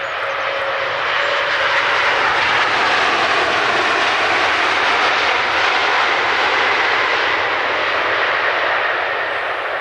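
A large jet airliner passing with its engines loud. The noise builds over the first second or so, holds steady, and eases a little near the end, with a faint whine slowly falling in pitch.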